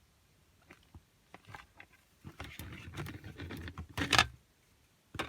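Plastic CD jewel case and its paper booklet being handled: scattered light clicks, a stretch of rustling, and a sharp double clack a little after four seconds in.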